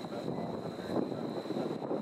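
Gusty wind buffeting the microphone over the distant jet engine noise of a KC-135 Stratotanker landing, with a steady high-pitched whine.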